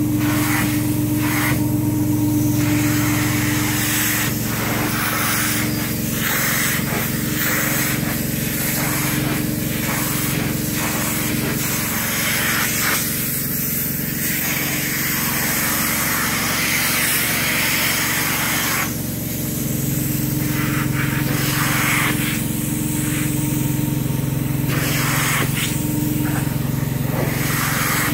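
Truck-mounted carpet-cleaning unit running with a steady drone while its upholstery hand tool sprays and vacuums across a microfiber chair. The hissing of spray and suction comes and goes with each pass of the tool.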